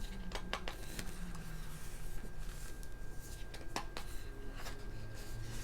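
Pages of a printed magazine being turned and handled: soft paper rustles with a few sharp clicks, over a low steady room hum.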